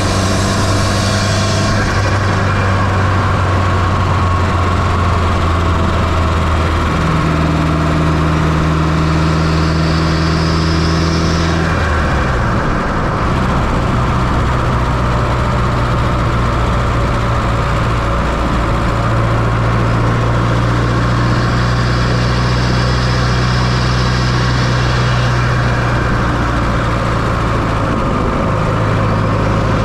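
1995 Fiat Coupé 2.0 16V turbo four-cylinder engine running steadily, heard from inside the engine bay; its pitch drops a step about twelve seconds in.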